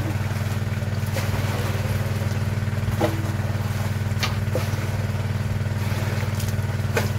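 A small engine running steadily at constant speed, a low even drone, with a few knocks and splashes as water is poured from a plastic bucket into a large clay water jar.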